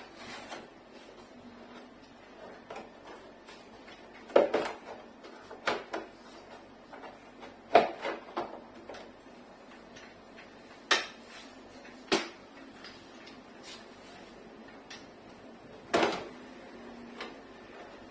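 Plastic casing of a Sharp split air-conditioner's indoor unit clicking and knocking as its cover is worked loose by hand: a string of separate sharp clacks, about eight of them, one to several seconds apart.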